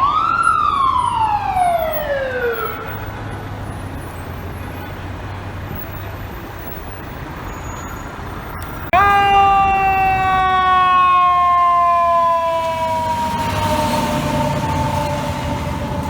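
Fire truck siren. A quick rise then a falling wail fades over the first three seconds. About nine seconds in, a loud siren tone starts abruptly and slides slowly down in pitch until the end, over low traffic and engine rumble.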